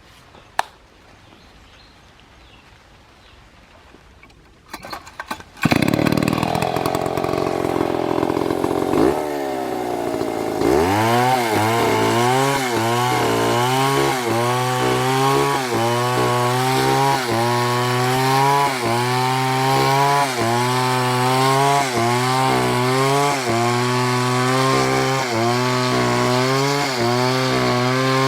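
STIHL MS720 chainsaw: after about five seconds of quiet with a single click, the saw comes in loud at high speed about five and a half seconds in. From about ten seconds in it settles into a steady cut, its engine pitch sagging and climbing back roughly once a second.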